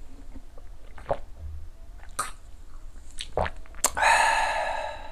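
A man's drawn-out, raspy exclamation of a little over a second near the end, right after downing a shot of soju. A few small clicks come before it.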